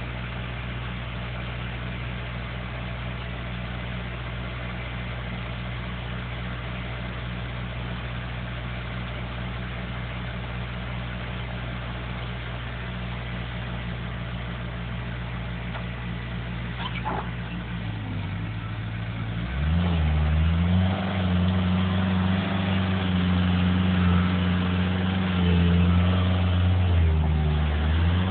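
Engine of a heavy machine running at a steady idle, then revving up about twenty seconds in and holding at a higher, louder speed, with a short dip near the end.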